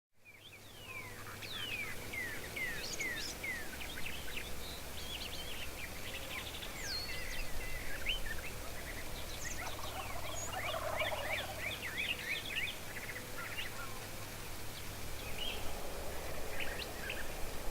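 Rio Grande wild turkeys gobbling in the morning, with the largest gobble about ten seconds in, over many quick falling songbird chirps.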